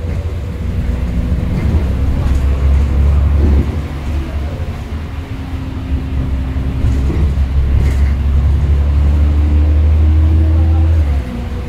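Bus engine and drivetrain heard from inside the cabin: a loud low drone with a steady hum above it. The drone eases about three and a half seconds in and then builds again. Near the end a hum rises in pitch and the drone drops off sharply.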